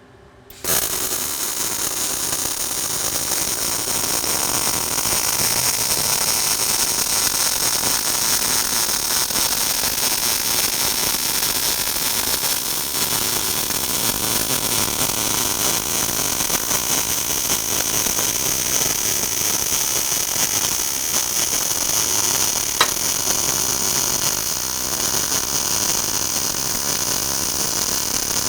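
MIG welding arc with solid (hard) wire: it strikes under a second in and then runs as a steady, crackling hiss while a downhill root pass is laid at about 16.5 volts and 180 wire speed.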